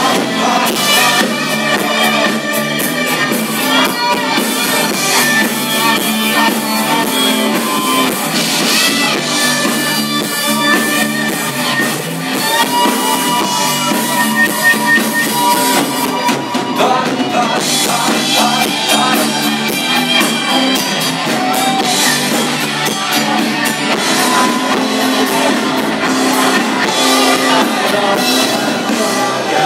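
Live band playing a song: acoustic guitar and drum kit with a steady cymbal beat, and a singer's voice over them, amplified through the room's PA.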